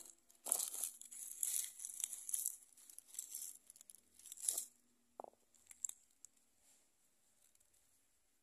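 Rustling, crinkling handling noise for about four seconds, then a few light clicks.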